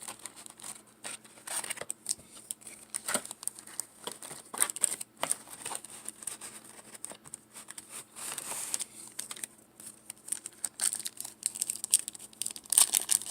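Paper wrapper of a trading card pack being torn open and crinkled in the hands: irregular tearing and rustling with scattered small clicks.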